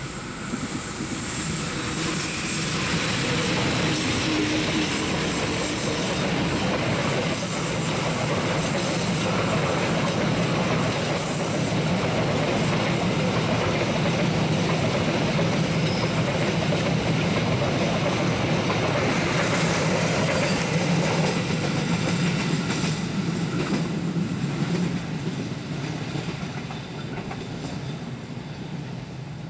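Indonesian passenger train hauled by a diesel-electric locomotive passing close by: a low, steady engine drone over the noise of the coaches' wheels running on the rails. It swells about a second in, holds, and fades away over the last few seconds as the train recedes.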